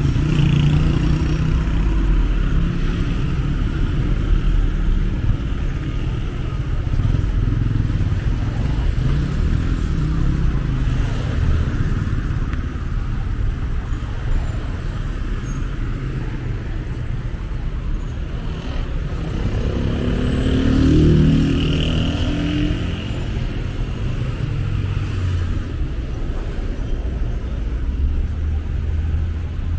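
City street traffic: cars and motorcycles passing, with a steady low rumble of engines and tyres. About twenty seconds in, one vehicle's engine passes close and rises in pitch.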